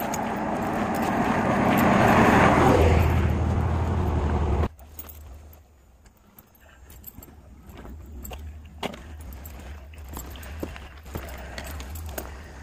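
A car passing on the road, its tyre and engine noise building to a peak about two seconds in, then cut off abruptly just under five seconds in. Quieter scattered ticks and a low hum follow.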